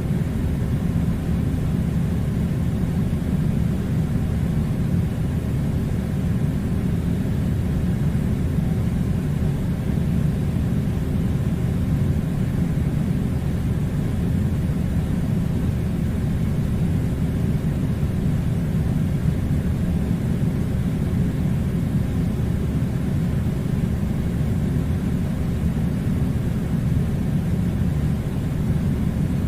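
Air conditioner running with a steady low rumbling hum and a faint steady tone.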